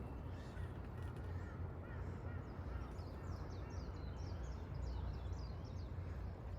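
Wild birds calling: faint lower calls early on, then a quick run of short, high falling chirps in the second half, over a steady low rumble.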